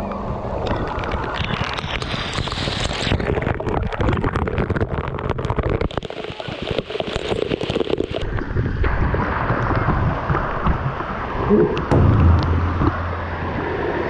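Waterfall water pouring and splashing right at the microphone: a dense, steady rush of falling water with many sharp spatters.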